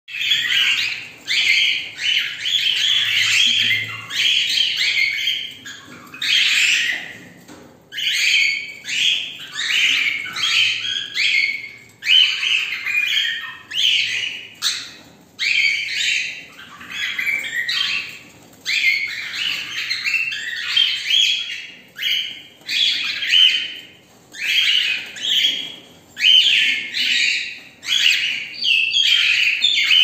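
Several cockatiels calling and chirping together in loud, overlapping bursts with only brief pauses.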